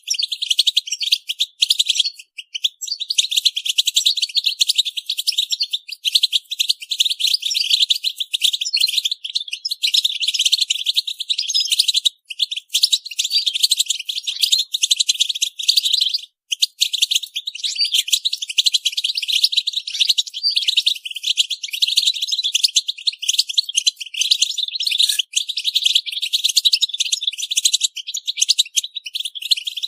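European goldfinches twittering: a dense, rapid stream of high-pitched chirps and call notes, with brief breaks about two, twelve and sixteen seconds in.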